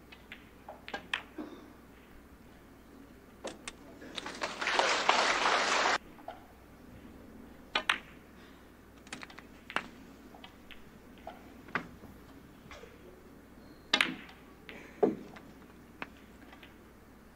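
Snooker balls clicking: sharp single clicks of the cue tip striking the cue ball and balls colliding, scattered through the stretch. About four seconds in, a two-second burst of audience applause, cut off suddenly.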